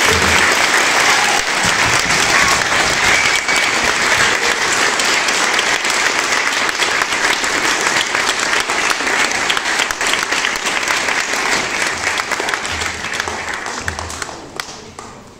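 Audience applauding: a loud, steady round of clapping that dies away near the end.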